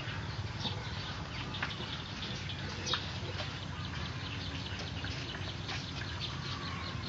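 Outdoor background of scattered short bird chirps over a steady low hum, one call a little louder about three seconds in.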